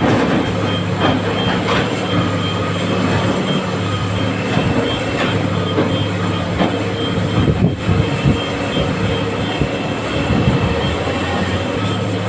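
Excavator's diesel engine running steadily, with scattered knocks and clatter of iron ore being loaded, most of them between about five and eight seconds in.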